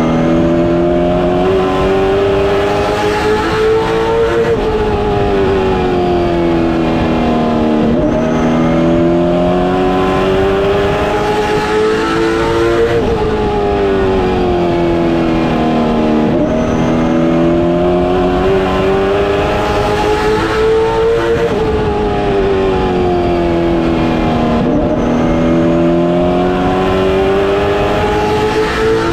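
Late Model Stock car's V8 engine heard from inside the cockpit at racing speed. Its pitch climbs as it accelerates down each straight and drops as the driver lifts for each turn, repeating about every eight to nine seconds, with road and wind noise underneath.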